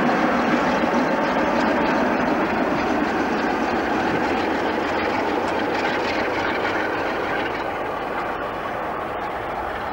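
A pair of British Rail Class 47 diesel locomotives coupled together passing close and running away: a steady noise of engines and wheels on the rails that slowly fades as they move off.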